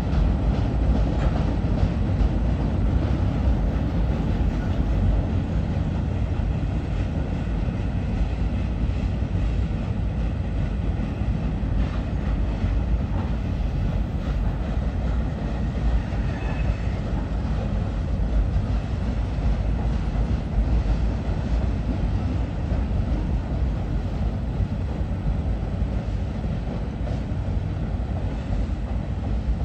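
Freight train's loaded flatcars rolling across a steel railroad trestle: a steady, heavy rumble with the clatter of wheels on the rails.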